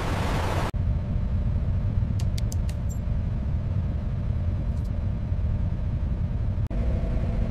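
Steady low rumble of heavy machinery, with a few faint ticks. A loud hiss cuts off abruptly under a second in, and near the end the sound changes abruptly as a faint steady hum joins the rumble.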